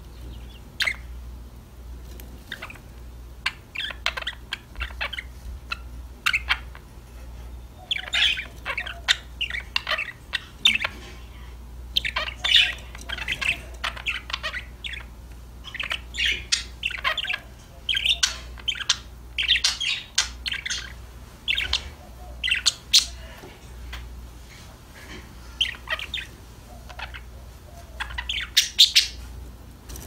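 Budgerigars chirping and chattering: quick runs of short, high calls that come and go, with a loud flurry near the end.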